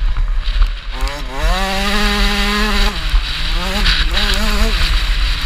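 KTM 65 two-stroke motocross bike engine under riding load: the revs climb and hold about a second in, drop sharply near the middle, then climb and fall off again, with a heavy low rumble of wind on the microphone.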